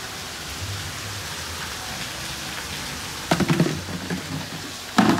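Steady rain falling, an even hiss, with two brief louder noises about three seconds in and near the end.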